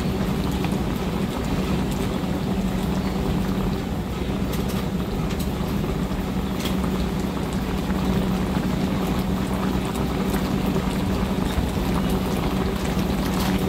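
Wok of coconut-milk gravy simmering on the stove, heard under a steady low hum and rushing noise, with a few faint ticks.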